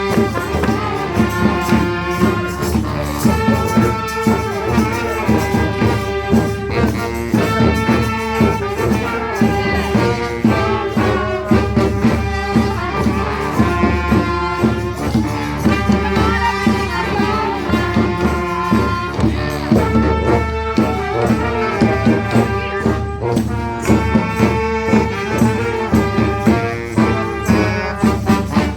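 Honk-style street band playing live: brass horns on held, stacked notes over a steady percussion beat.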